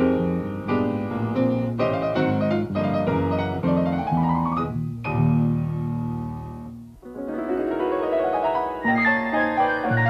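Piano music of the show's closing theme: a lively melody with quick upward runs, and a chord held and fading away about two-thirds of the way through before the playing picks up again.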